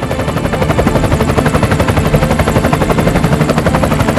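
Helicopter hovering overhead, its rotor blades beating in rapid, even pulses.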